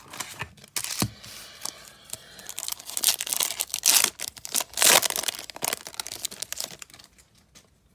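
Foil trading-card pack wrapper being torn open and crinkled by hand, in irregular crackling rips that are loudest about three to five seconds in.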